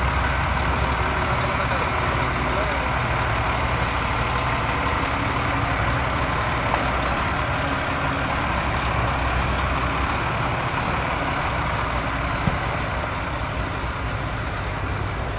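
A heavy vehicle's engine idling steadily, with a low, even hum.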